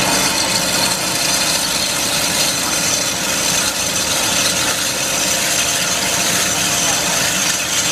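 A GZ4232 CNC automatic band saw running, its blade sawing through solid metal bar. The sound is a steady hiss over the machine's hum.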